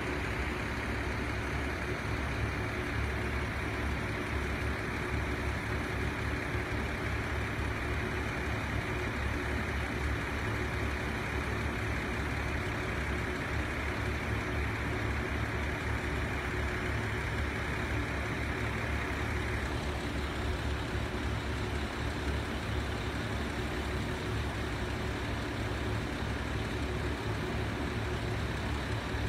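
KiHa 75 diesel railcar's engine idling steadily, with a low even throb. A higher rushing layer over it drops away about twenty seconds in.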